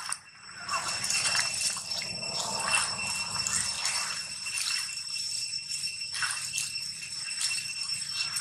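Dry fallen leaves rustling and crackling irregularly as a macaque moves and forages over the leaf litter, over a steady high-pitched ringing drone in the background.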